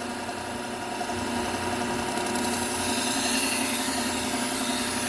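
Bucktool low-speed belt sander running steadily with a Trizact A30 belt, a kitchen knife's edge being drawn across it so that a hissing grind joins the motor hum, stronger from a couple of seconds in. This is the refining pass that smooths away the heavy scratch pattern left by the coarse P120 belt and hones the edge.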